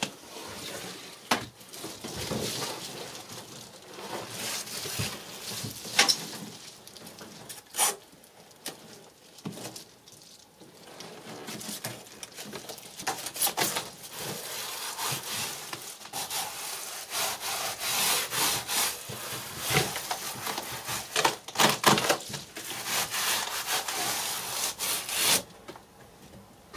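Double-sided aluminium foil bubble insulation rustling and crinkling as a sheet is handled and pressed flat against a bus wall panel, with scattered sharp clicks and knocks. It goes quieter for a couple of seconds around the middle and stops shortly before the end.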